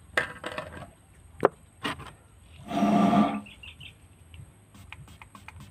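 Handling of a homemade marble toy gun's pipe barrel: a few sharp clicks and knocks, the sharpest about one and a half seconds in, and a brief pitched sound about three seconds in.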